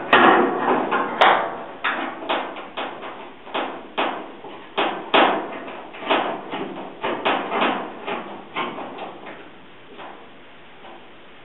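A rapid, irregular run of sharp knocks and rattles on the sheet-metal cabinet of a Whirlpool dryer being taken apart, about twenty of them, stopping about ten seconds in.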